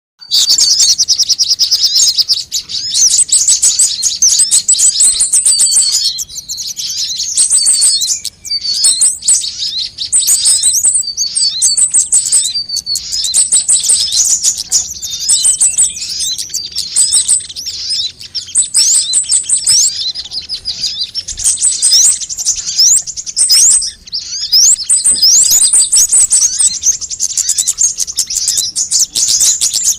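Sunbirds calling and singing: a dense, near-continuous run of high-pitched chirps and fast sweeping trills, broken by a few short pauses.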